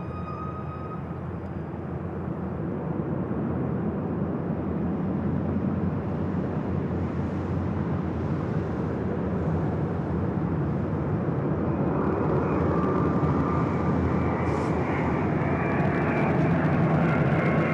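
Jet engines of a heavy military transport at takeoff power, a steady rush that grows louder as the aircraft rolls down the runway, with a high turbine whine coming in about twelve seconds in.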